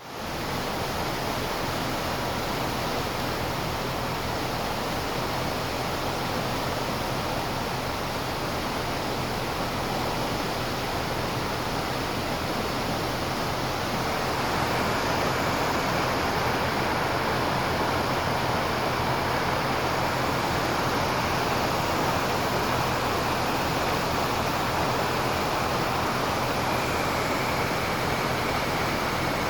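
Floodwater rushing steadily over the roadway, growing somewhat louder about halfway through, with a faint steady low hum underneath.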